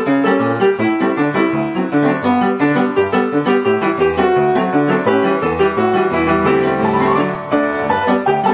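Background music played on piano, a quick run of notes with no singing.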